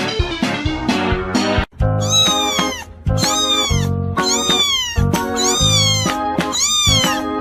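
A very young orange kitten meowing over and over, high mews about one a second, each rising and then falling in pitch, over background music. The first second and a half is music alone.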